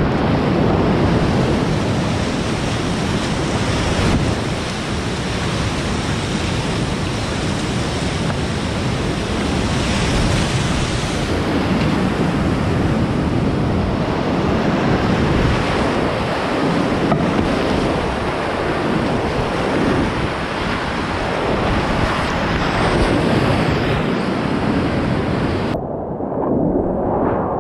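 Loud, steady rush of whitewater rapids heard from inside a kayak running a steep creek. Near the end the sound turns briefly muffled, losing its hiss and leaving only a low rumble.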